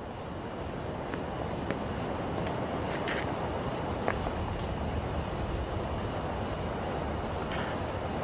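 Crickets chirping steadily on a summer night, over a low background rumble that swells over the first couple of seconds and then holds, with a few faint clicks.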